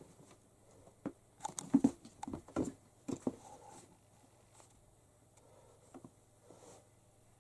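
A cream kitten's paws pattering and thumping as it plays, jumping off a chair and scampering on the carpet: a cluster of light knocks and scuffles in the first few seconds, then a couple of soft taps later.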